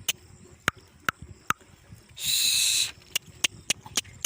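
Goats' hooves clicking sharply and irregularly on hard ground as the herd is driven along, with one short, harsh animal cry about two seconds in.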